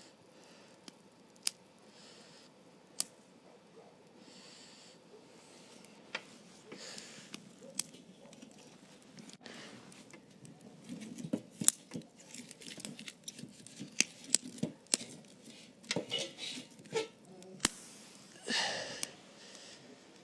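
Campfire with kindling and straw being tended: scattered sharp snaps and crackles with rustling, growing busier in the second half, and a short breathy rush of noise near the end.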